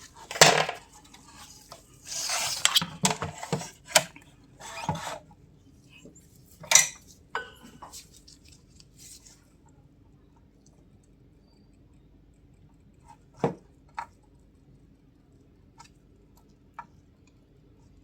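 Small metal hand tools clinking, tapping and scraping against a circuit board and workbench, with a busy run of clicks in the first five seconds, then a few single clicks.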